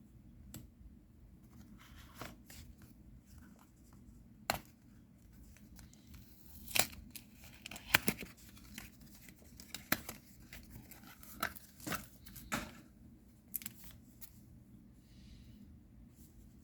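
A trading card booster pack wrapper being torn open and crinkled by hand: a run of sharp crackling tears and rustles, loudest around the middle.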